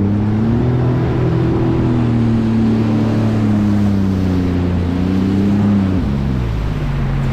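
Sea-Doo jet ski engine running at cruising speed over the rush of water and wind, its pitch sagging a little, rising again, then dropping to a lower steady note about six seconds in as the revs come down.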